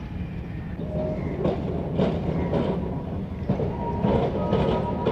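A Kolkata electric tram running on street track, with a low rumble and wheels knocking and clattering about twice a second. A thin steady whine joins in about three and a half seconds in.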